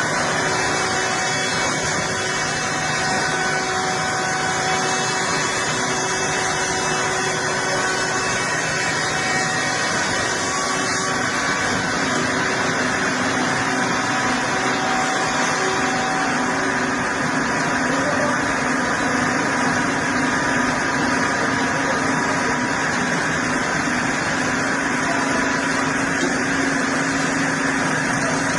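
A heavy wood-processing machine running steadily: a continuous engine-and-machinery hum with several held tones, one of which enters low about midway and holds.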